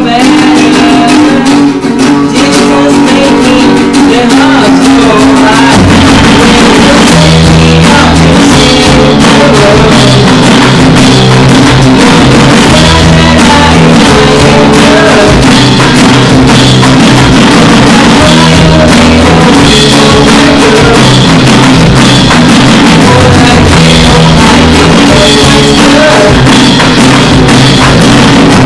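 Small band playing a rock song on acoustic guitar, electric bass and an electronic drum kit, loud. The guitar is strummed alone at first; the bass and drums come in about six seconds in and keep a steady beat.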